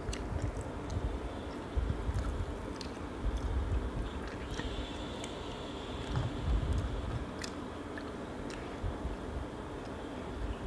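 Close-miked eating of lobster: biting and chewing with the mouth, with scattered small clicks and ticks as the shell and meat are handled by hand.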